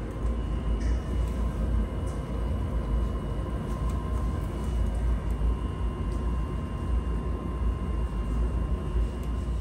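Coin-operated laundromat tumble dryer running with its drum turning: a steady low rumble with a thin, constant whine over it.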